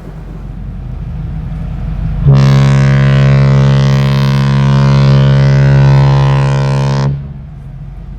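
The ship's horn (typhon) of the cruise ship Odyssey of the Seas sounds one long, steady, deep blast of about five seconds. The blast starts about two seconds in and cuts off sharply. A low rumble lies under it before and after.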